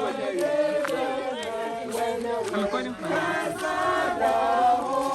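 A group of people singing a hymn together in chorus, several voices overlapping on long held notes.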